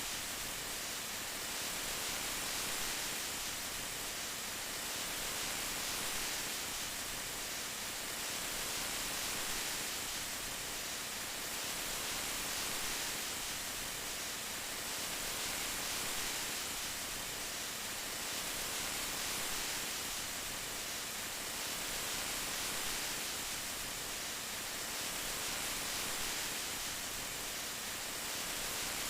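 Steady rain falling, an even hiss that swells slightly about every three seconds.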